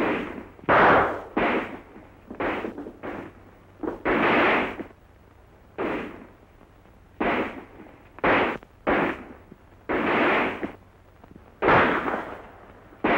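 Handgun shots in a gunfight: about a dozen sharp bangs at uneven intervals, each with a short echoing tail.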